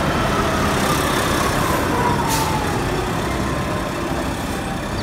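Diesel engine of a Volvo BM articulated concrete mixer truck running as it drives past, with a faint whine that falls slowly in pitch over the first two seconds or so.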